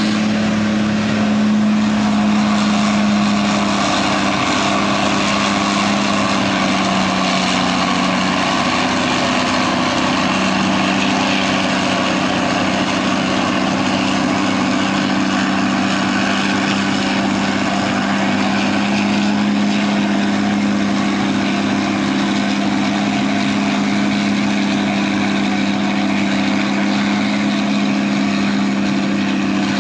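Diesel farm machinery at a maize silage harvest running steadily: a Fendt tractor with a silage trailer and a self-propelled forage harvester chopping maize. It is a loud, constant engine drone, whose deep hum dips slightly in pitch for a few seconds about four seconds in and then holds.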